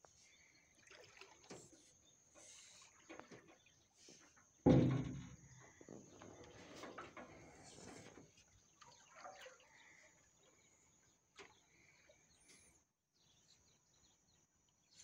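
Quiet outdoor ambience from a small boat by a reedbed: faint scattered knocks and rustles, one louder thump about five seconds in, and a short bird chirp near the end.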